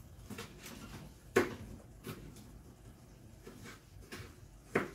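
Kitchen knife chopping vegetables on a cutting board: a handful of irregular sharp knocks, the loudest about a second and a half in and another near the end.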